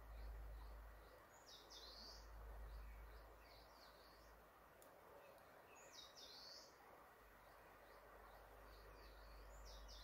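Forest songbirds singing faintly, one repeating the same short, high phrase about every four and a half seconds amid softer scattered chirps, over a steady rush of river water.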